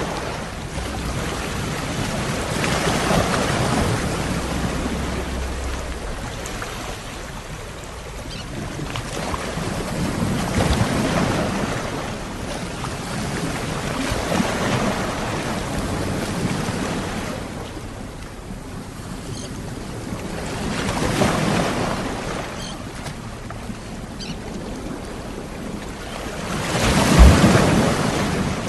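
Ocean waves washing onto the shore, each surge building and fading every few seconds. The loudest wave breaks near the end.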